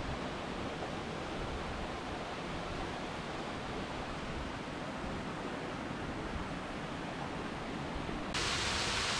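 Steady rush of flowing stream water. Near the end it cuts suddenly to a louder, hissier rush of falling water.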